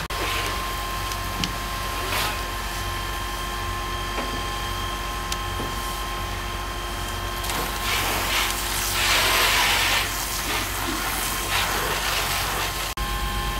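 Fire hose spraying water onto a burning car, heard as bursts of hissing spray and steam, loudest from about eight to ten seconds in and again briefly near the end, over the steady hum of the fire engine running alongside. A few sharp snaps come through early on.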